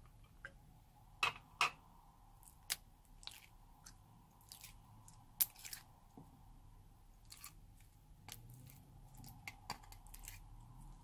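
Soft slime being pulled and pressed out of a plastic flower-shaped tray, with scattered sticky clicks and pops and light plastic handling noise. A pair of sharper pops comes just over a second in, and another about halfway through.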